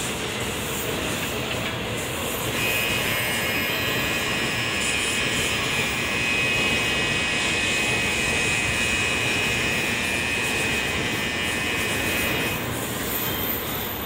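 Shinkansen platform departure bell ringing steadily for about ten seconds, starting a couple of seconds in and cutting off suddenly, over a steady rushing noise from the trains at the platform.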